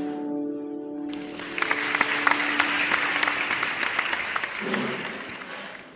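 The final chord of the piano accompaniment rings and fades. About a second in, applause breaks out and carries on, dying away at the end.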